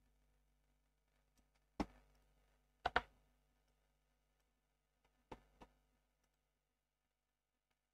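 A few short, sharp clicks from working a computer: one about two seconds in, a close pair about a second later, and a fainter pair past the middle, with near silence between.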